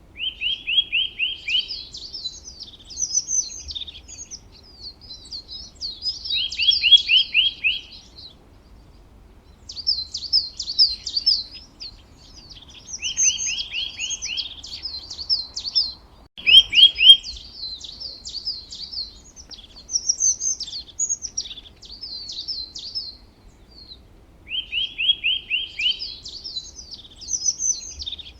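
Birds singing: a fast run of about six down-slurred notes recurs every six seconds or so, between higher, varied twittering phrases. There is a brief click about two-thirds of the way in.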